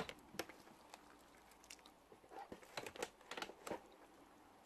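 Faint, scattered clicks and light knocks of things being handled in a drone's carry case, with a small cluster of them in the middle.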